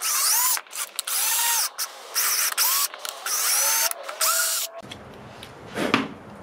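Ridgid cordless drill driving a household screw through the plastic fog light housing inlet to widen a pilot hole. It runs in several short bursts, its motor whine rising at each start, and stops about five seconds in. A single knock follows near the end.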